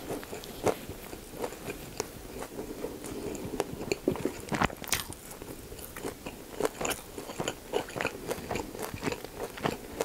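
Close-miked chewing of a mouthful of pork-belly gimbap (seaweed, rice, lettuce and pickled radish): a run of irregular wet crunches and clicks, with a louder crunch about halfway through.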